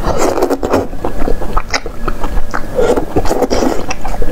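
Close-miked wet chewing and slurping of chewy braised intestines and noodles, with a run of irregular mouth clicks and smacks; a noodle is slurped in near the end.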